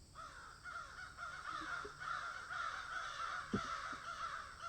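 A flock of birds calling continuously, many short arching calls overlapping, with a single sharp knock about three and a half seconds in.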